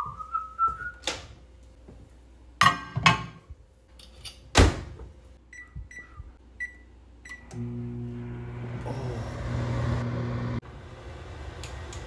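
Several knocks and thuds as food goes into a built-in microwave oven, then four short beeps from its touch keypad as the time is entered, and from about halfway through the microwave running with a steady hum. A brief rising whistle is heard right at the start.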